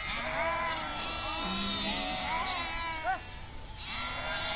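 A flock of sheep bleating, several calls overlapping one another, with a short sharp bleat about three seconds in.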